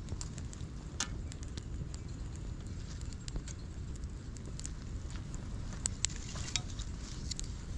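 Wind buffeting the microphone with a steady low rumble, with scattered light clicks and crackles, a few sharper ones about a second in and near the end.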